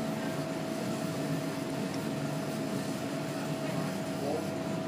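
Steady mechanical hum with a constant high whine running through it.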